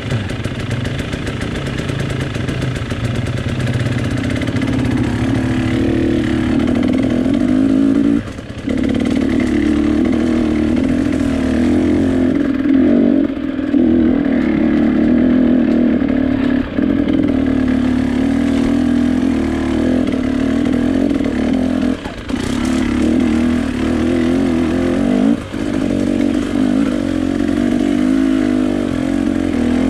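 A vehicle's engine running steadily under way, its note dropping off briefly about five times before picking up again.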